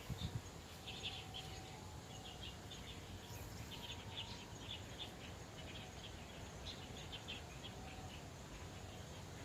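Repeated short, high chirps from a small bird or insect, coming in irregular clusters over a faint, steady low background rumble, with a brief dull thump at the very start.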